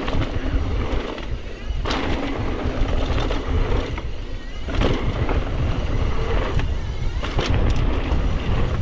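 Mountain bike running fast down a dirt bike-park trail: wind buffeting the microphone and a constant rattle of tyres and bike over rough ground, with a few sharp knocks from bumps and landings, about two seconds, five seconds and seven and a half seconds in.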